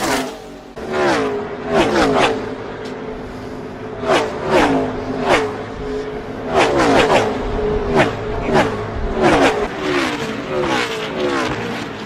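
NASCAR Gen 6 stock cars' V8 engines passing at racing speed one after another in a pack. Each car's note arrives loud and sharp, then drops in pitch as it goes by, about a dozen passes in quick succession.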